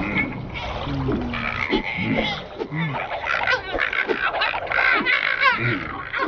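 Cartoon characters' wordless vocal babble: several voices making quick pitched calls, grunts and sliding squeaks that overlap throughout.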